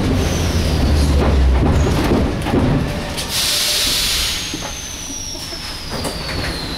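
Metro train running, heard from inside the carriage: a heavy low rumble at first, a burst of hiss about three seconds in, then quieter running with a thin electric whine falling steadily in pitch as the train slows.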